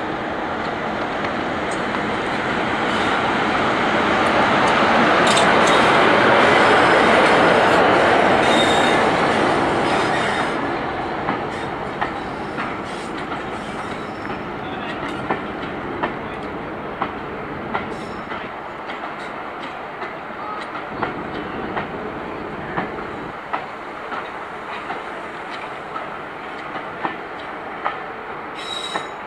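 Class 45 'Peak' diesel locomotive running past with its engine loudest about six seconds in, then fading as its coaches roll by. The wheels click over the rail joints at about one click a second.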